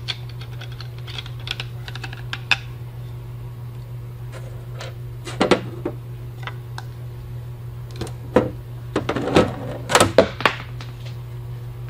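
Light clicks and knocks of hard plastic parts being handled as nylon hex-head bolts are unscrewed from a plastic coil saddle, with a few louder clusters of knocking and rubbing about halfway through and again near the end. A steady low hum runs underneath.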